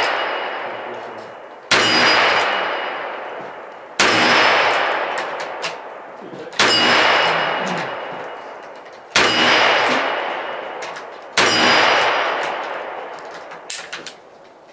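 Smith & Wesson 686 Plus revolver firing .38 Special rounds, five shots spaced about two and a half seconds apart. Each shot is followed by the steel plate target ringing as it is hit, the ring fading over about two seconds. The ring of a shot fired just before is still dying away at the start.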